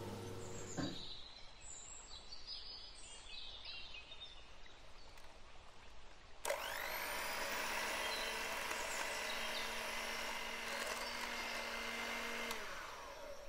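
Electric hand mixer switched on about halfway through, its motor winding up quickly and then running steadily as the beaters cream butter and sugar in a glass bowl, before winding down near the end. Before it, only a faint knock and light handling sounds.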